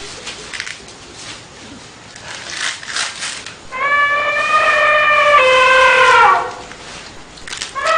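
Elephant trumpeting: after a quieter, breathy stretch, one loud trumpet call starts about halfway through and lasts about two and a half seconds, holding its pitch and then sliding down at the end.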